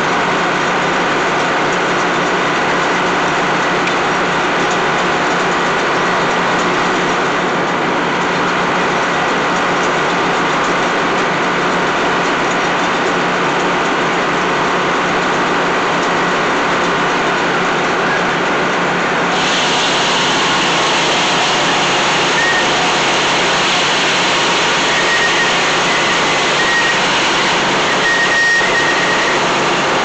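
Old Meadows circular sawmill running with a steady engine drone and blade hum. About two-thirds of the way through, a sudden hiss rises and holds as the blade starts cutting into the log.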